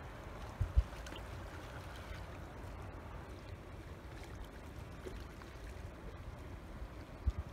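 Faint, steady low rumble of wind on the phone's microphone, with two short low bumps, one about a second in and one near the end.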